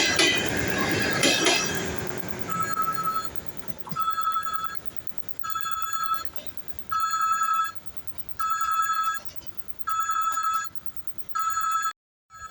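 An electric train's running noise fades over the first couple of seconds. Then a high electronic ringing signal sounds in seven short, evenly spaced bursts, about one every one and a half seconds.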